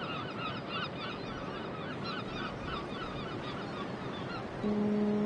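A flock of gulls calling, many short arched calls repeating and overlapping. Near the end a steady, held low musical note comes in underneath.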